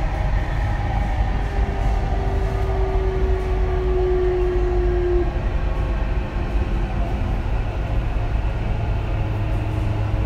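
Dubai Metro train running through an underground tunnel: a steady low rumble of wheels on rails. A thin whine falls slightly in pitch from about a second in to about five seconds in.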